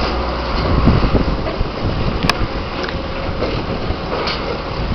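Potato truck and even-flow conveyor machinery running together: a steady mechanical rumble with a continuous rattle.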